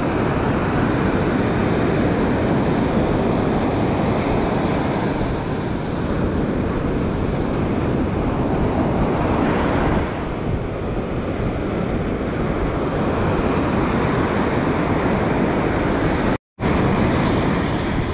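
Ocean surf breaking and washing up the beach in a steady rushing roar, with wind rumbling on the microphone. The sound cuts out completely for a split second near the end.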